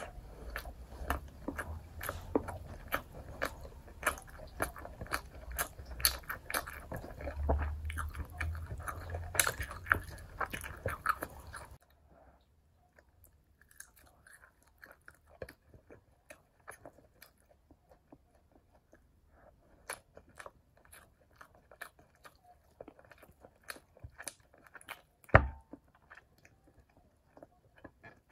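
Close-miked chewing and biting of fried chicken and rice, with crunching and wet mouth clicks. The sounds are dense for the first half, then become sparser and quieter partway through. One sharp knock stands out near the end.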